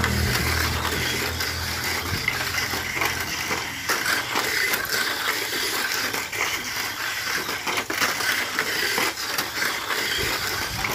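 Tamiya Mini 4WD cars running on a plastic two-lane track: a steady buzzing clatter with many small clicks and knocks as they run through the track sections. A low engine hum fades out over the first few seconds.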